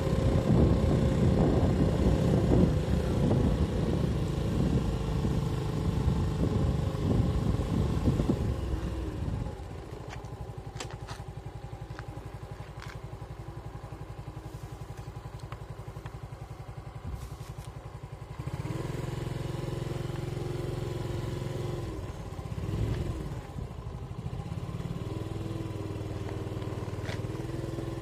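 Small motorcycle engine running as it rides, dropping to a quieter steady idle about a third of the way in, then picking up again just past the middle as it moves off.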